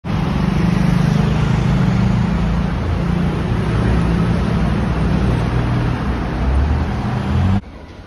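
Elevated metro train running along a concrete viaduct overhead, a loud steady rumble mixed with city traffic noise. It cuts off suddenly near the end, leaving a much quieter background.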